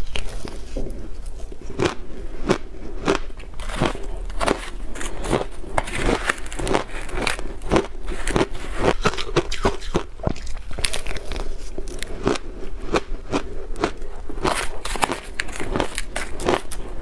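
Close-miked crunching of shaved blender ice dusted with milk powder being bitten and chewed: a dense, irregular run of crisp crackling crunches.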